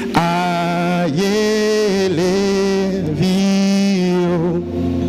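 Slow, chant-like singing of a Ghanaian song: a man's voice holds long notes into the microphone while other voices sing along in harmony.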